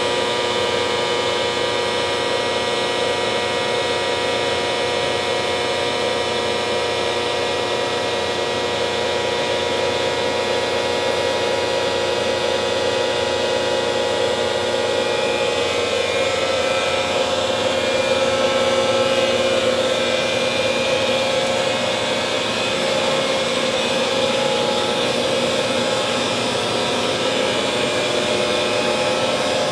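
1967 Readco welding positioner's power tilt drive running: a steady mechanical hum with several steady whining tones from the electric motor and gear train as the faceplate tilts, a little louder around the middle.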